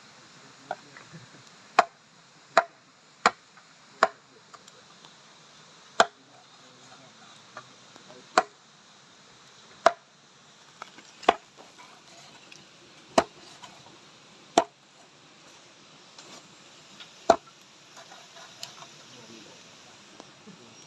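Chopping with a blade, about eleven sharp single strokes at an uneven pace, one to two and a half seconds apart.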